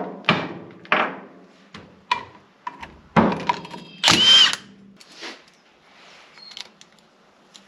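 Milwaukee Fuel cordless impact wrench run in a series of short bursts, spinning the 9/16-inch bolts out of the back of a GM power steering pump. The longest and loudest burst comes a little past the middle.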